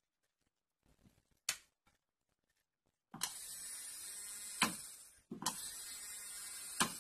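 Electric nail drill's handpiece motor: a click, then from about three seconds in a steady high whine as the drill runs at speed, twice, each run ending with a click and a brief wind-down.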